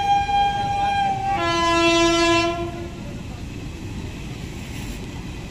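Train horn sounding a higher note, which stops about a second and a half in, then a louder, lower note held for about a second and a half. Under it runs the steady rumble of passenger coaches rolling along the rails.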